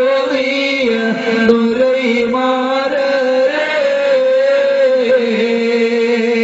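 Two men singing a Malayalam Islamic devotional song together into microphones, drawing out long, wavering, ornamented notes.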